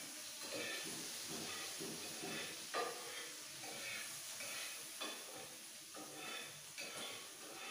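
Food frying and sizzling in a kadai, with a spatula scraping and stirring it in irregular strokes about every half second to a second over a steady frying hiss. One sharper clack of the spatula on the pan comes nearly three seconds in.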